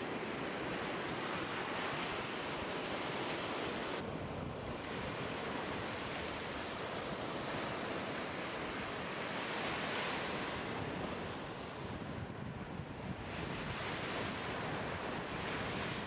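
Sea surf breaking and washing up a sandy beach, swelling and ebbing in surges, with wind blowing on the microphone.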